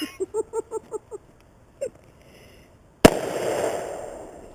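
.357 Magnum revolver fired once, about three seconds in: a sharp, loud shot followed by a long, fading echo.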